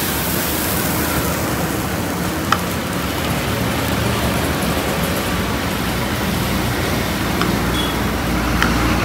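Water sprinkled onto a hot dosa griddle hisses sharply at the start, over a steady street-traffic noise that runs on. There is one sharp click about two and a half seconds in.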